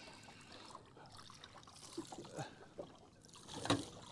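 Faint water lapping and trickling against the hull of a drifting boat, with a few light knocks and one sharper knock near the end.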